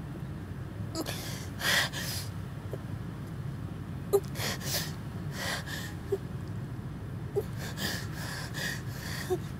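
A woman crying: breathy, gasping sobs and sniffs that come in uneven bursts, with small wet clicks between them. A steady low rumble runs underneath.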